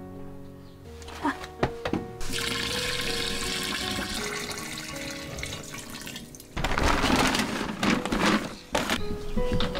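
A stream of water pours onto rice grains in a jar, with soft background music. About two-thirds of the way through, this gives way to brown paper crinkling as it is handled over the jar's mouth.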